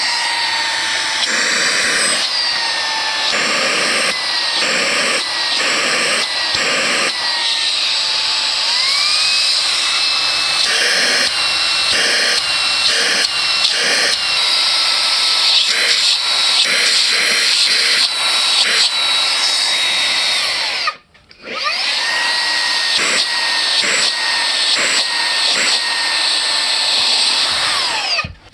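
Xiaomi Mijia SSXCQ01XY handheld cordless vacuum cleaner's 120 W brushless motor running with a high whine while its suction is tested. The pitch rises about a third of the way in and the sound wavers repeatedly. It cuts out briefly about three quarters of the way through, spins back up, and stops near the end.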